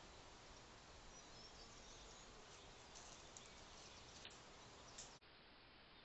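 Near silence: the steady hiss of a trail camera's microphone, with a few faint, brief bird chirps.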